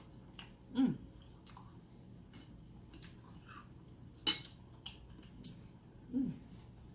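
Metal fork tapping and scraping on a plate several times while eating, the sharpest clink about four seconds in. Two short, low sounds falling in pitch come about a second in and near the end.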